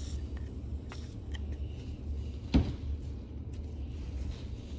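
Faint scraping and clicking of a pick tool working dirt out of a spur gear held in a cloth, over a steady low hum, with one short thump about two and a half seconds in.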